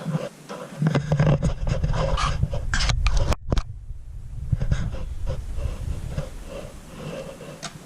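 Plastic remote controls being handled and clacking against each other in a drawer, with heavy rubbing and handling noise on the phone's microphone; the loud stretch with many clicks runs from about one second in to about four and a half seconds, cutting out briefly near the middle, then lighter clicking.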